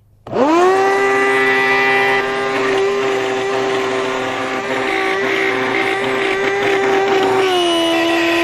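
Old Shop-Vac wet/dry vacuum switched on, its motor spinning up fast and settling into a loud, steady high-pitched scream with several tones, dropping slightly in pitch near the end. The screaming is the sign of a failing motor, which the owner takes for the bearings going out.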